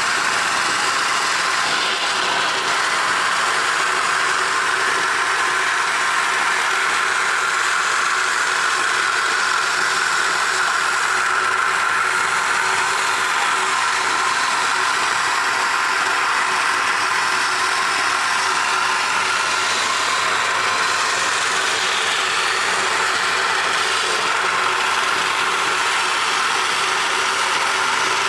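Electric coconut grating machine running steadily, its motor and grating drum giving a continuous even mechanical noise.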